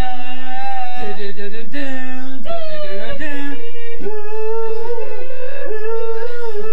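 Four men singing a cappella in harmony, loud and close, holding long sustained notes.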